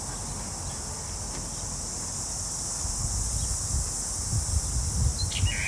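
Steady high-pitched chorus of summer insects, with wind buffeting the microphone from about halfway through and a few short bird chirps near the end.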